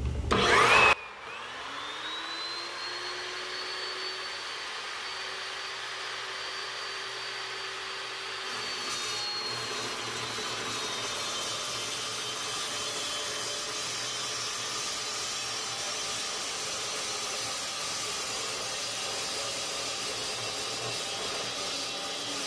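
Evolution 14-inch carbide-tipped chop saw switching on with a loud burst, its motor whine rising as the blade spins up and then holding steady. From about eight seconds in the blade cuts through a steel pipe: the whine drops slightly in pitch under load and a steady cutting noise carries on to the end.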